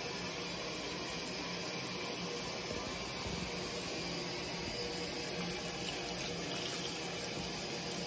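Water pouring steadily from a garden hose into the drum of a Giantex portable washing machine as the tub fills.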